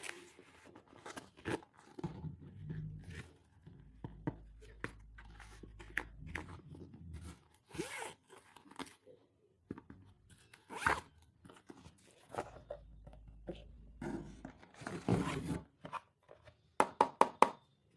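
Stationery and its packaging being handled: plastic rustling and crinkling with scattered clicks and taps, then a quick run of sharp clicks near the end.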